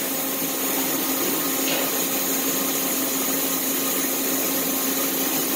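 Steady hum and whir of a powered-up Mazak CNC lathe standing at idle, with a constant low tone under an even whooshing noise.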